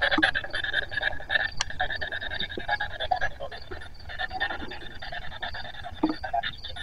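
Spirit box sweeping through radio frequencies: a steady stream of rapidly chopped static and radio fragments.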